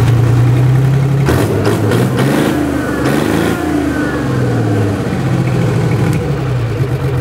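Detroit Diesel 6V71, a Roots-blown two-stroke V6 diesel, running after a restart, its speed shifting a little in the first few seconds before settling.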